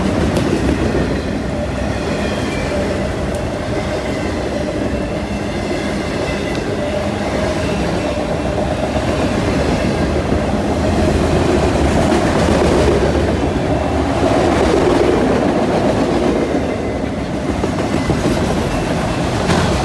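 Freight train's autorack cars rolling past close by, a steady rumble of steel wheels on the rails, a little louder in the middle.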